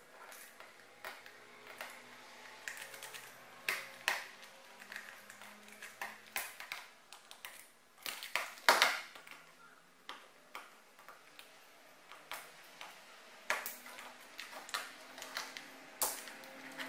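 A Phillips screwdriver backing small screws out of a plastic toy's casing: scattered light clicks and taps of metal and plastic, with a louder cluster of knocks about halfway through.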